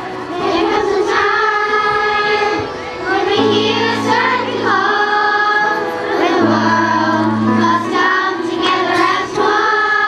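Children's choir singing a song in unison over an instrumental accompaniment that holds long low bass notes.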